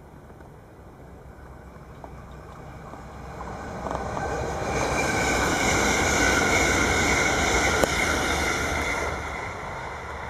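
NS Sprinter Lighttrain electric multiple unit passing close by, its wheels running on the rails. The rushing sound swells as it approaches, is loudest for a few seconds in the middle, and eases off toward the end, with a single sharp click about two-thirds of the way through.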